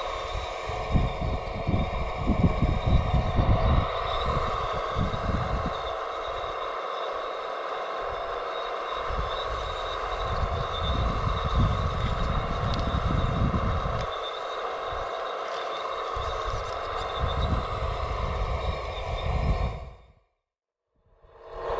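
Radio-controlled scale construction machinery running: a steady whine from the electric motors and hydraulic pump, with bursts of low rumble coming and going. The sound fades out briefly near the end and then comes back.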